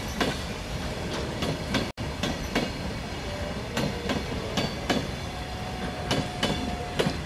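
BCNA covered freight wagons and the brake van rolling past on broad-gauge track: a steady rumble with an uneven run of clicks as the wheels cross the rail joints. A faint, thin squeal from the wheels comes in during the last couple of seconds.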